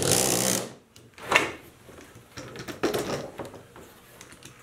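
Knife cutting through wax foundation along the edges of a wooden beehive frame: a loud scraping stroke at the start, another sharp stroke about a second later, then quieter scrapes and clicks.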